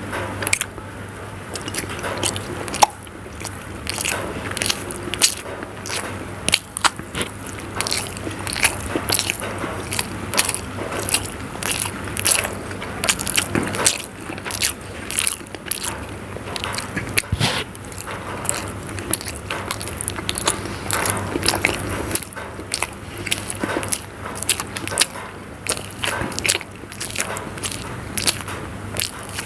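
Close-miked eating of hard-boiled eggs in spicy gravy: continual wet biting, chewing and lip-smacking, many small sharp smacks a second, over a steady low hum.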